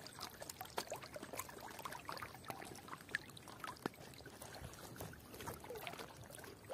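Faint, small splashes and drips of water close to the microphone, with irregular light ticks, as the tube moves through the water.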